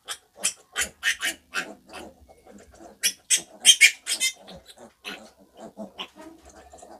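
A piglet squealing as it is caught and held by hand for an injection: a rapid series of short squeals, loudest about three to four seconds in and thinning out towards the end.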